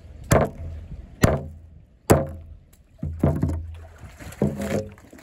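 Stale, hard bread being pounded to crumbs on a wooden dock rail: five sharp knocks on the wood, about a second apart.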